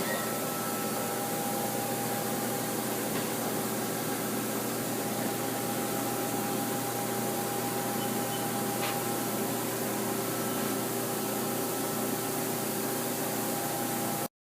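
Steady running hum and fan hiss of a powered-up Haas SL-20T CNC lathe at its open electrical cabinet, with several steady hum tones. A faint click comes about nine seconds in, and the sound cuts off abruptly near the end.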